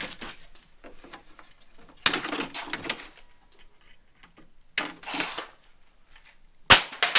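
Plastic front grille of a 1999 Subaru Forester being pulled off: its clips snap loose with sharp clicks about two seconds in, near five seconds and, loudest, near the end, each followed by a short scrape and rattle of plastic.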